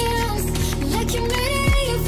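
Background pop music with a melody line over a deep kick drum that hits about once a second.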